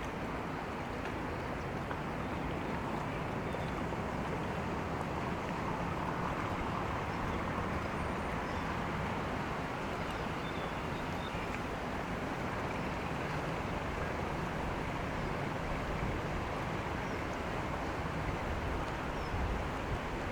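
Steady outdoor background noise: an even, continuous hum with no distinct events.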